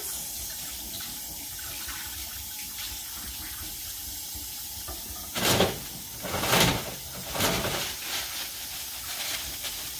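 Tap water running steadily into a stainless steel sink as hands are rinsed under it. About halfway through come three louder, brief rustling pulls, paper towels being drawn from the wall dispenser.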